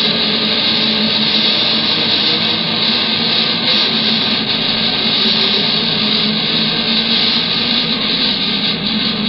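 Heavily distorted electric guitar, a Greg Bennett electric through a Twinote Boogie distortion pedal, playing a dense, unbroken wall of metal guitar.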